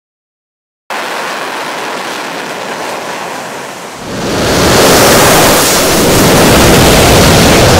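Military jet engine noise: a steady rushing hiss that cuts in abruptly, then swells about four seconds in to a much louder, deeper roar as the jet comes close.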